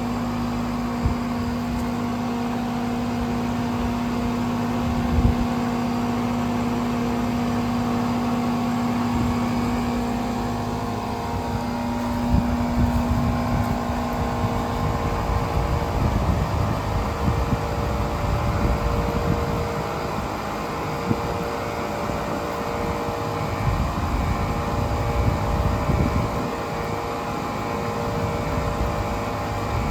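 Outdoor condensing units of a dual-zone Ruud central air conditioner, with Copeland scroll compressors on R-410A, running together: a steady compressor hum with several tones under the whoosh of the condenser fans. About halfway through, a low hum drops out and a rougher low rumble takes over.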